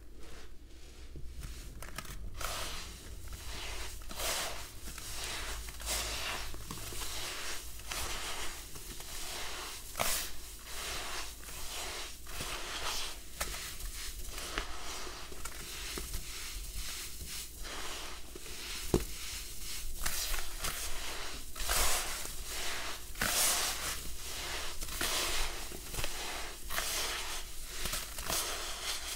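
Hands squeezing and crumbling crushed red sand blocks: irregular gritty crunches and soft rustling as clumps break apart between the fingers, with one sharper click about two-thirds of the way through.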